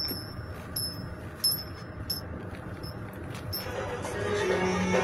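Light chime-like tinkling, a few separate strikes, over a low steady rumble; background music fades in about three and a half seconds in and grows louder.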